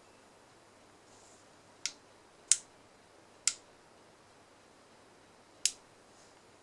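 Four sharp clicks of the CXG E60W soldering iron's push buttons being pressed, spaced unevenly over a few seconds, as a password is keyed into its menu.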